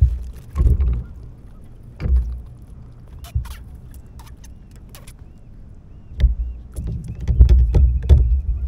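Clicks, knocks and low thumps of a small porgy (scup) being swung aboard a plastic fishing kayak and handled, with the rod and tackle bumping against the hull. The knocks come in clusters: one at the start, one about two seconds in, and a denser run over the last couple of seconds.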